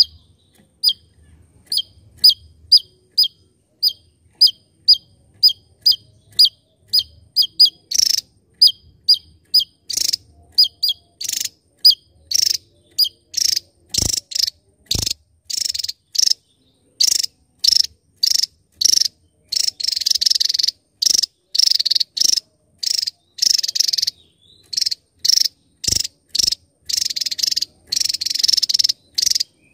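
Javan tesia singing: a run of short, sharp high notes about two a second, which from about eight seconds in grow longer, buzzier and closer together into dense rattling stretches. A few sharp clicks fall among them.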